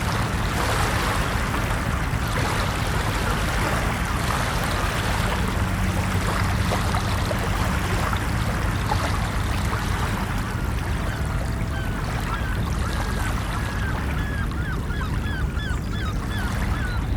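Steady wash of ocean waves, with a run of short, repeated bird calls in the second half that come faster toward the end.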